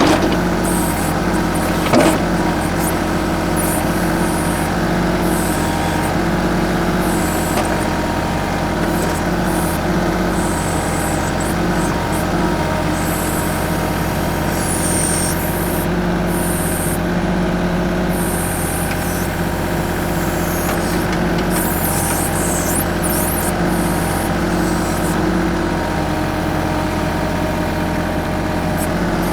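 TYM 2515H compact tractor's 25 hp diesel engine running steadily while working a backhoe, with two sharp knocks in the first couple of seconds.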